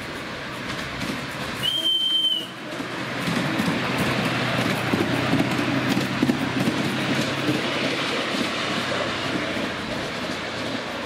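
Miniature steam locomotive's whistle giving one short blast about two seconds in, then the passenger train rumbling past with the wheels clicking over the rail joints.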